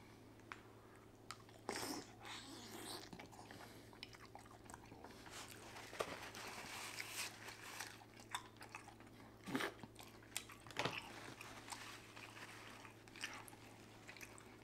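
A person eating a seafood boil close to the microphone: chewing and wet mouth sounds with many small clicks and a few louder crackles.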